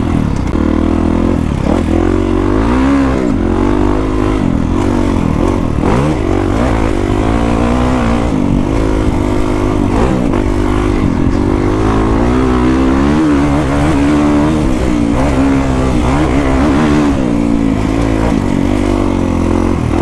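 Kawasaki KX450X single-cylinder four-stroke engine breathing through an FMF 4.1 RCT exhaust, heard from on the bike while trail riding. The revs rise and fall constantly with the throttle and gear changes.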